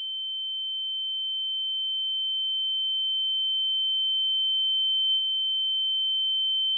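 A single steady high-pitched tone, slowly growing louder: a film's ear-ringing sound effect following a gunshot.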